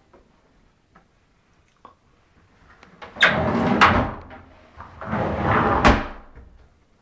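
A sliding wardrobe door rolled along its track twice, each run a rattling rumble of about a second with a sharp knock as it hits the stop. A few faint clicks come before it.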